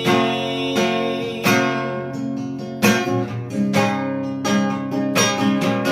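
Acoustic guitar strumming chords between sung lines, each chord struck about once a second and left to ring.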